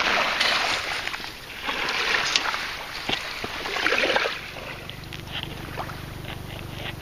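Shovel scraping and tossing wet sand and gravel back into dug clam holes, three rushing strokes about two seconds apart with small clicks of stones. After the third stroke only a low steady hum remains.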